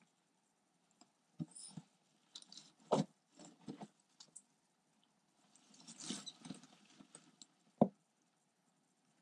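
Bark chips crackling and rustling under a garter snake and a live toad struggling in its jaws, in scattered short bursts with quiet gaps, and two louder knocks, one about three seconds in and one near the end.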